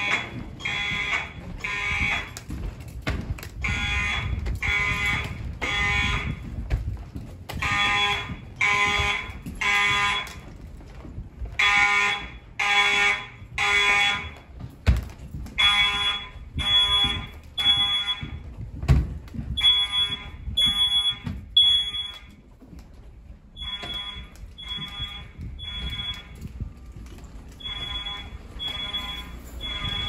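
Mechanical fire alarm horns, the school's Siemens U-HN hallway horn-strobes, blasting in the temporal-3 evacuation pattern: three buzzy half-second blasts a second apart, then a short pause, repeating.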